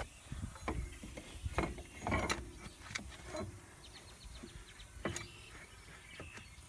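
Metal knocks and scraping as a Ford Super Duty front axle shaft is slid into the axle housing toward the spider gear, with a short run of rapid fine ticking about four seconds in.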